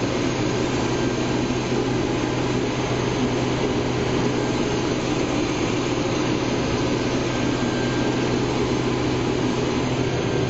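Case IH 2388 axial-flow combine running steadily while cutting wheat, heard from inside the cab: an even mechanical hum with a constant low drone that does not change.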